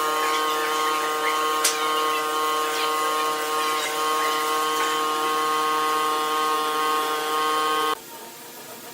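Electric motor of a woodworking machine running at a steady pitch with a buzzing whine. It cuts off abruptly near the end.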